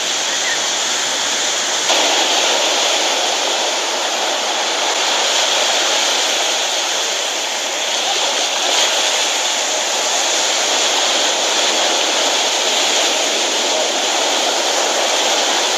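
Steady rushing of small waves breaking and washing up on a sandy beach, a little louder from about two seconds in.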